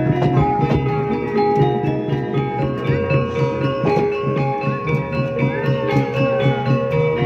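Javanese gamelan music of the kind that accompanies an ebeg horse dance: struck tuned metal notes ringing and overlapping, over a steady low percussion beat.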